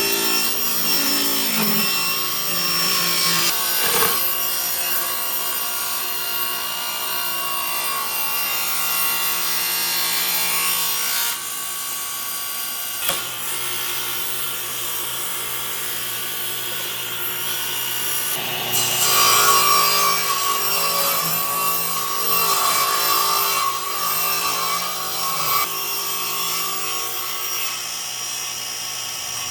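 A power tool working wood, its motor whine held steady over a dense rasping noise. The sound changes abruptly twice, about a third and about two thirds of the way through.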